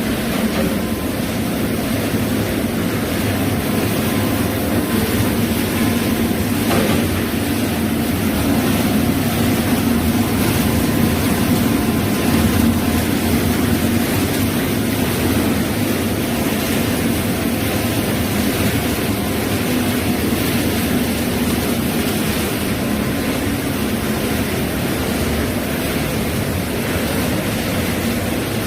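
Automatic chili-pepper processing line running: a steady machine drone with a constant hiss.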